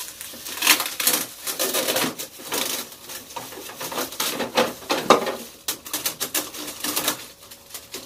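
Rapid, irregular clicks and taps as parts of a new refrigerator are handled.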